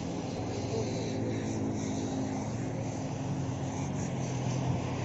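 JCB 30 Plus mini excavator's engine running steadily.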